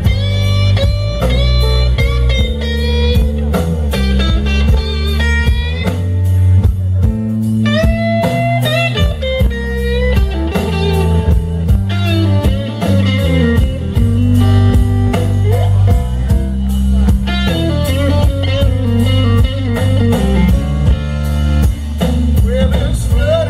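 Live blues band playing a slow blues: a Stratocaster-style electric guitar plays lead lines with bent notes over bass guitar and a drum kit.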